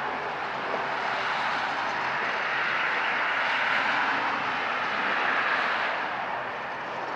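John Deere farm tractor engine running steadily as it drives past towing a three-point-hitch mower, easing off a little near the end.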